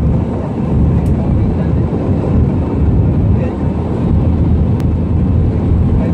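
Airliner cabin noise during the takeoff roll: the jet engines and the rumble of the runway, heard from inside the cabin as a loud, steady, deep rumble.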